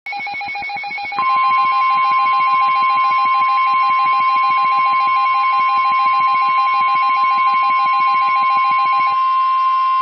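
NOAA Weather Radio 1050 Hz warning alarm tone: one steady, loud tone that starts about a second in and holds for about nine seconds, the signal that a warning message is about to be broadcast. Under it a fast-pulsing, two-pitched beeping alert runs from the start and stops about nine seconds in.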